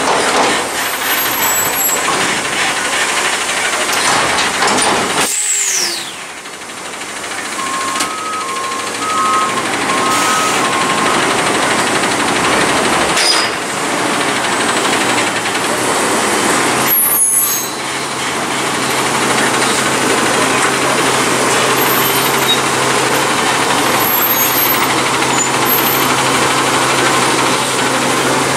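CNG Autocar ACX front-loader garbage truck with a New Way Mammoth body, running its engine and lift hydraulics while emptying and lowering a steel dumpster. A falling air hiss comes about five seconds in, a short two-tone beeping alarm plays for a few seconds, and a sharp air-brake blast comes past the middle. After that the engine settles to a steady drone that rises near the end as the truck pulls away.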